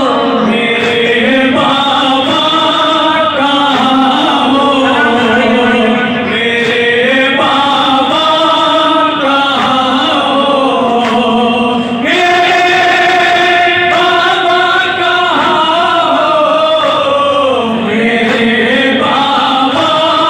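Men chanting a noha, a Shia Muharram lament, together into microphones: a lead voice and a group of young men joined in a slow, sustained melodic line.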